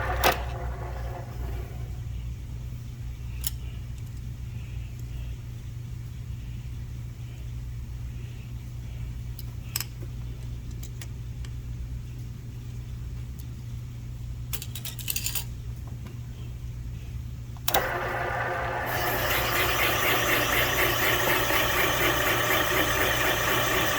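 Cylinder-head machine (Comec ACF200) humming steadily, with a few light clicks. About 18 seconds in, a louder, steady cutting noise starts as the tool cuts a chamfer into the top of a valve guide.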